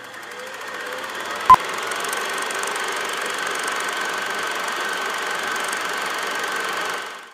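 Old film projector running with a steady mechanical rattle, building up over the first two seconds and fading out just before the end, with one short loud high beep of a countdown leader about one and a half seconds in.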